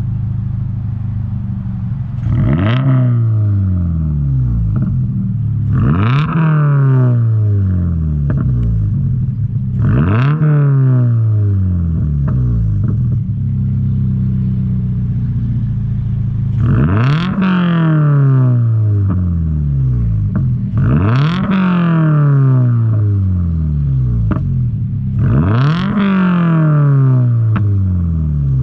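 Toyota GR86's 2.4-litre flat-four engine and aftermarket exhaust revved six times from idle, each a quick rise in pitch followed by a slower fall back to a steady idle, with the low rumble of the boxer engine through the exhaust.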